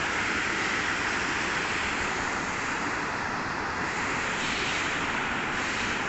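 Water rushing over rocks in a shallow stream, a steady, even rush.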